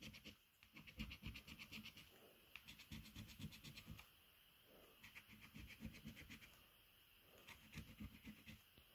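A coin scraping the scratch-off coating from a Cashword scratchcard, faint, in several short runs of quick strokes with brief pauses between.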